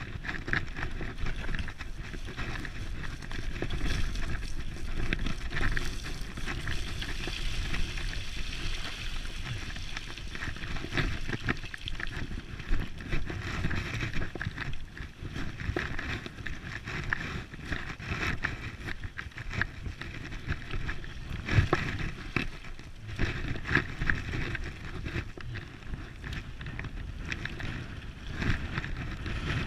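Dog scooter rolling over a rough, muddy dirt track: its tyres running on the ground and the frame rattling and knocking over bumps, many times throughout, with wind noise on the microphone.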